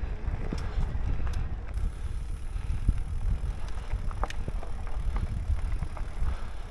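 Electric bicycle riding downhill on a trail: a steady low rumble of wind on the microphone and tyres rolling, with scattered small clicks and rattles.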